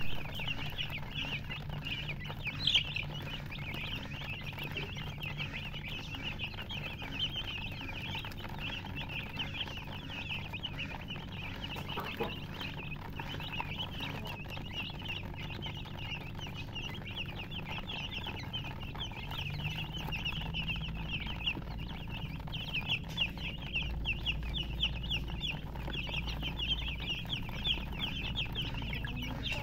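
A brood of baby chicks peeping without pause, a dense overlapping chatter of short high chirps. A steady low hum runs underneath, with a low rumble joining in after about twenty seconds.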